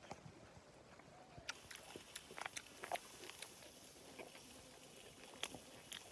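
Faint, scattered clicks and smacks of a man eating, over a quiet background hiss.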